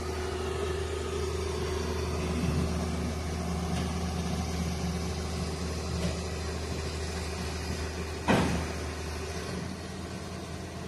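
Tata Hitachi Zaxis 220 excavator's diesel engine running steadily at low revs, with a single sharp knock about eight seconds in.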